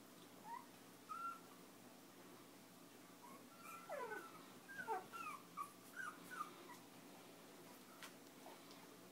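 Five-week-old Chinese Crested puppies whimpering and squeaking: two short high squeals in the first second and a half, then a quick run of them, some sliding down in pitch, from about three and a half to six and a half seconds in.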